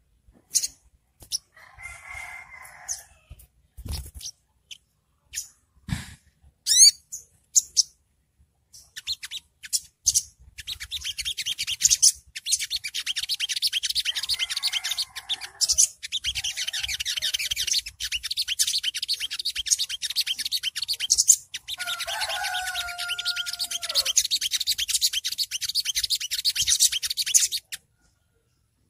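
Olive-backed sunbird singing its 'ngriwik' song: scattered sharp chips and short twitters, then about ten seconds in a long, rapid, very high trilling chatter that runs on for some fifteen seconds with brief breaks. A lower held call sounds beneath it near the end and falls as it stops.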